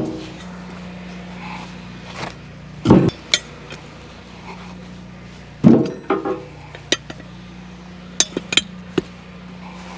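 Heavy knocks with a short metallic ring, one about three seconds in and another about six seconds in, followed by a quick run of light clinks near the end, over a faint steady hum.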